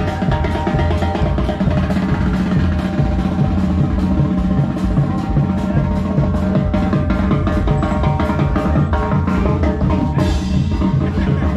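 Dance music played loud over a DJ sound system, driven by a busy drum kit with a regular bass drum and snare under bass and melody instruments.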